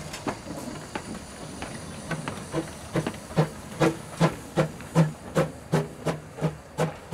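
1930 Baldwin steam locomotive pulling away. After a light steam hiss, its exhaust chuffs begin about two seconds in and run evenly at roughly three beats a second, growing louder.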